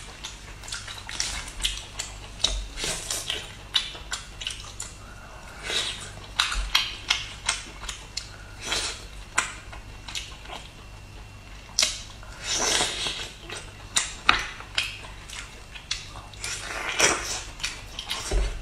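Close-up eating sounds of a person chewing roast chicken, with many short wet clicks and crackles from chewing and lip-smacking, and skin and meat being torn off the leg by hand.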